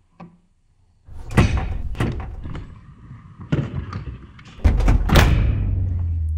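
Stanley plastic rolling tool box being shut and handled: its lid and sides clunk and bang shut in a run of knocks, the loudest about two-thirds in. A low steady drone starts at about the same time.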